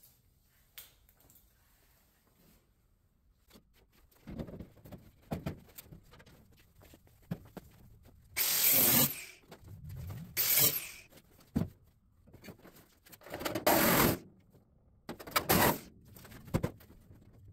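Sheet-metal truck roof being shifted and lifted off the cab: about four short, loud bursts of metal scraping and rattling in the second half, after a quiet start.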